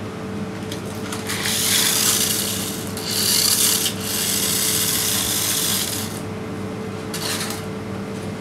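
Small electric motor and gears of a battery-powered remote-control toy monster truck whirring in several bursts of a second or two as the remote is pressed and released. The wheels scrub on the tiled floor, and a steady low hum lies underneath.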